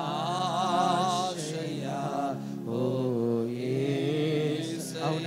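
Male voice singing a Telugu worship song, drawing out held notes with a wavering vibrato, over sustained electronic keyboard chords.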